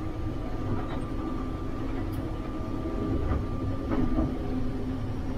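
Case IH 2144 combine running while it harvests soybeans with its bean head, heard from inside the cab: a steady machine drone with a thin whine on top. A few light clicks and knocks come through over it.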